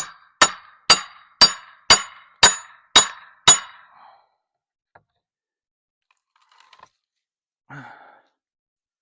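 Eight quick blows of a metal tool hammering on metal, about two a second, each with a short metallic ring, working loose a stubborn corral part. A short breathy sound comes near the end.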